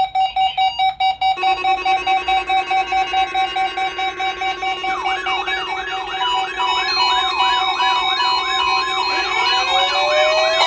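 Several weather alert radios sounding their alarms at once, set off by a NOAA Weather Radio weekly test. A pulsing beep is joined about a second in by steady alarm tones, then by a warbling siren-like alarm, about two sweeps a second, from about five seconds in.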